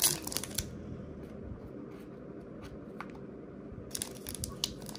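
Trading-card pack wrapper crinkling and cards being handled: a burst of crinkling at the start, quieter handling with a faint click in between, and crinkling again from about four seconds in.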